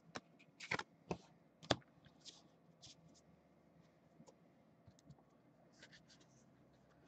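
Trading cards handled by hand, flipped, slid and set down in a stack: a few short ticks and scrapes in the first two seconds, then only faint occasional ticks.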